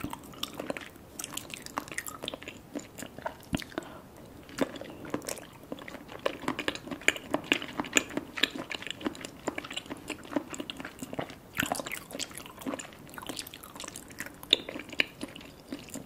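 Chewing a firm Kyoho grape jelly with the mouth closed: a steady run of squishy, wet mouth clicks and squelches.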